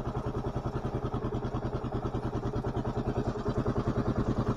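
1993 Suzuki DR650's single-cylinder four-stroke engine idling, an even thumping of about eight beats a second.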